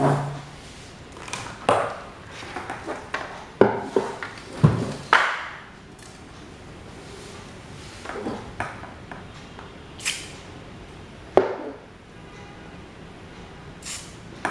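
Old desk fan's metal parts clinking and knocking as they are handled, about ten irregular strikes, some ringing briefly.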